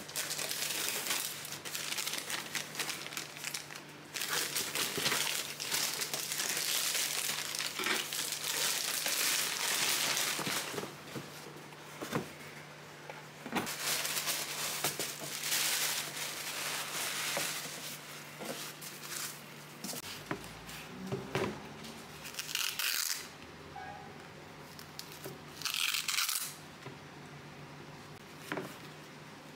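Plastic courier mailer being torn open and white tissue paper crinkling and rustling as a package is unwrapped by hand. The paper noise is dense for most of the time, then thins out, with two short rasps later on.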